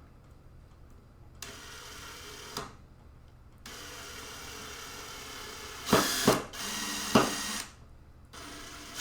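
Power drill driving a screw through the mounting board for a motherboard standoff hole. It runs in short spurts, first for about a second, then for several seconds. A few sharp knocks come in the second half of the longer run.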